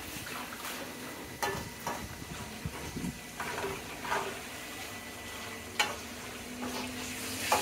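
Pieces of sweet pork sizzling as they fry in a steel wok over a gas flame. A spatula is stirred through them, scraping and knocking against the wok several times.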